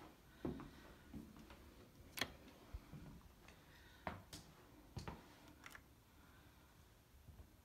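Near-silent room tone broken by about half a dozen faint, irregular clicks and soft knocks.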